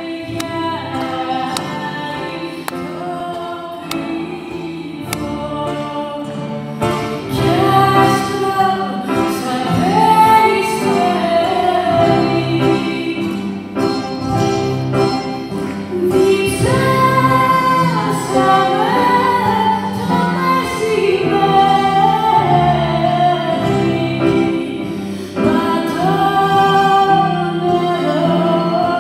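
A woman singing live into a microphone with band accompaniment that includes a stringed instrument; the music grows louder about seven seconds in.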